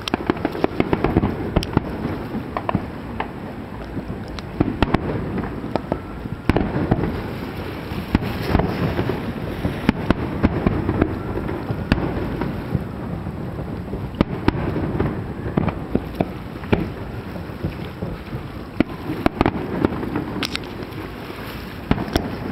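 Large aerial fireworks display: many shells bursting in quick, irregular succession, some sharp and loud, others fainter and crackling.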